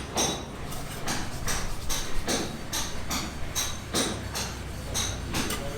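A steady run of sharp knocks, about two to three a second, each with a short, faint metallic ring.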